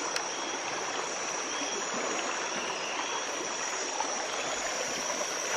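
Steady rushing of a flowing river, with a constant high-pitched drone above it.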